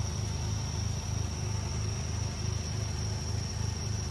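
Suzuki Jimny engine idling steadily with an even low pulse.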